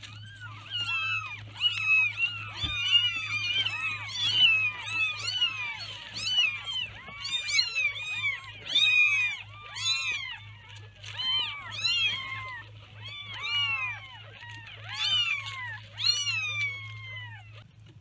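Several newborn kittens mewing, many short high calls that each rise and fall, overlapping thickly at first and then coming in spaced clusters. The calls stop just before the end as the mother cat settles in to nurse them.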